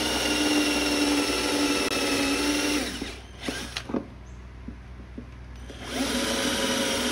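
Electric drill running in two bursts. Its motor whine winds down about three seconds in and spins up again about six seconds in, with a few light knocks in the pause between.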